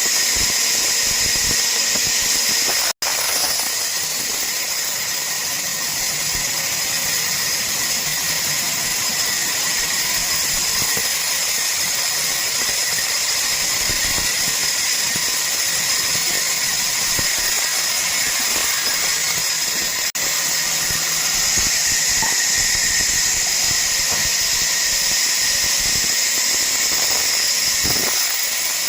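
Power saw cutting wood: a steady high hiss and whine that drops out for an instant about three seconds in.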